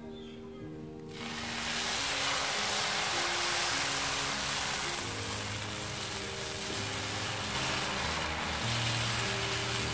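Dosa batter sizzling on a hot iron griddle as it is poured and spread with a ladle; the steady sizzle starts about a second in. Background music plays underneath.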